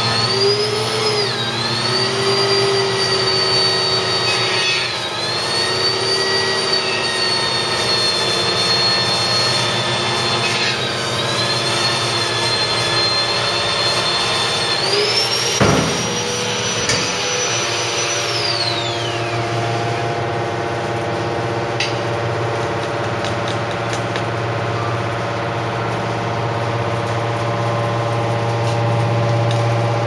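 Hydraulic scrap metal baler running: a steady motor and pump hum with a high whine over it. The whine dips briefly three times, jumps higher about halfway through with a single sharp knock, then glides down and fades a few seconds later while the hum carries on.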